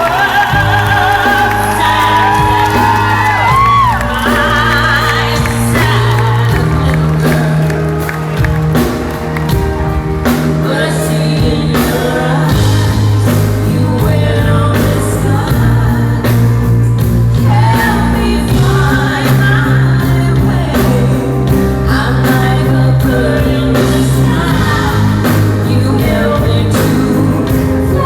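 Live pop-rock concert music: a band with steady drums and bass, with a woman singing over it, recorded from the audience.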